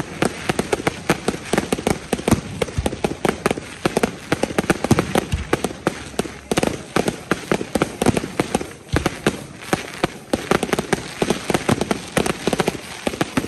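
Aerial fireworks: a rapid, unbroken barrage of shell bursts and crackling, many bangs a second overlapping one another.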